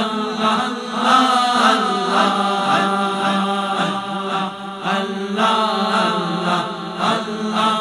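Group of men chanting zikr, repeating "Allah" in rhythmic phrases over a steady low drone.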